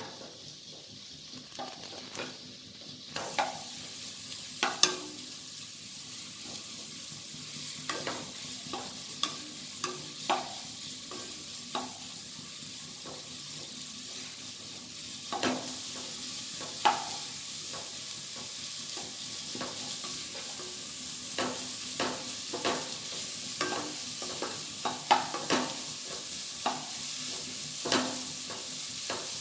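Chopped shallots sizzling in sesame oil in a kadai with a steady hiss, stirred with a wooden spatula that knocks and scrapes against the pan at irregular intervals. The onions are being sautéed until their raw smell is gone.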